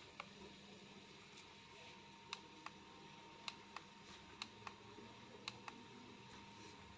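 Faint sharp clicks, mostly in pairs a quarter second apart, about four pairs over a few seconds, over a faint steady hum.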